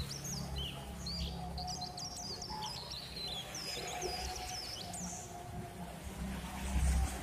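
Small birds chirping and twittering in quick rising and falling notes for the first five seconds or so, over a steady low hum. A low thump comes near the end, the loudest moment.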